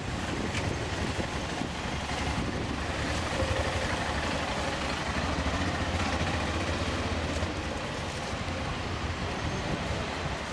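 Steady outdoor background noise with a low rumble, even throughout, with no single sound standing out.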